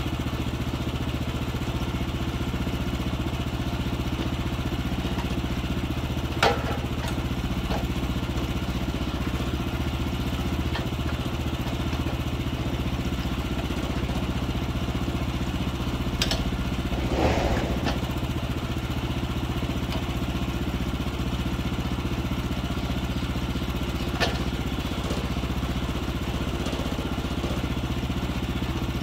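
The 14 hp gas engine of a Woodland Mills HM126 portable sawmill running steadily, not cutting. A few sharp knocks come through it, about a quarter, halfway and most of the way in, with a short clatter just after the middle one.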